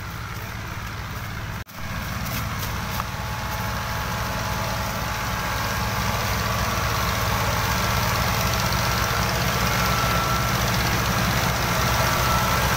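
Diesel engines of several tractors hitched in a line run hard together, hauling a loaded sugarcane trolley out of wet mud. The low, steady rumble grows gradually louder, with a momentary dropout about two seconds in.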